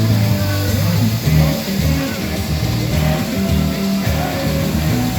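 Music with a plucked guitar and held low bass notes.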